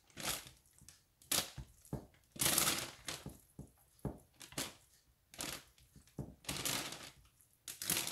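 Gallon Ziploc plastic bag crinkling and rustling in irregular bursts as it is held open and pieces of lamb are pushed into it.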